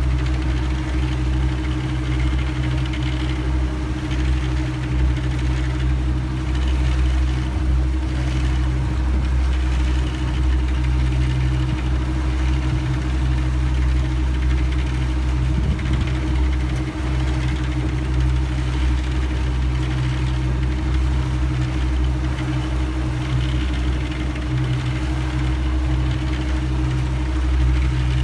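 Boat engine running steadily at low trolling speed, a constant low hum with a steady hiss of the wake over it.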